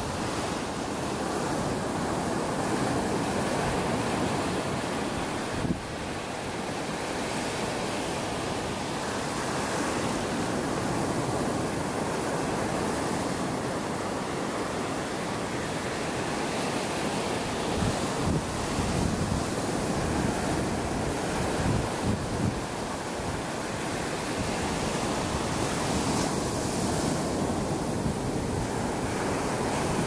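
Ocean surf breaking and washing up onto a sandy beach, a steady rush of waves. A few brief low buffets of wind hit the microphone along the way.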